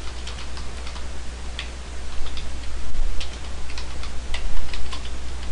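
Computer keyboard typing: irregular, scattered key clicks as a line of text is typed, over a steady hiss and low hum.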